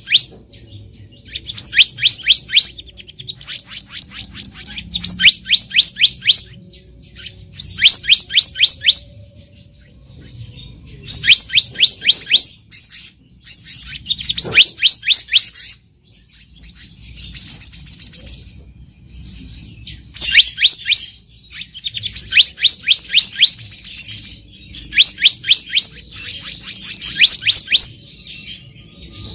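Black-naped monarch (kehicap ranting) calling: short bursts of rapid, high, sharp notes, about eight a second, repeated every second or two with brief pauses.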